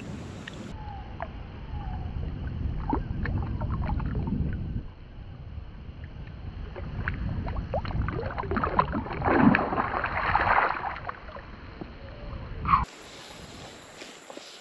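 Shallow river water sloshing close to the microphone, with hands splashing in the water as a trout is released; the splashing is loudest around nine to ten seconds in.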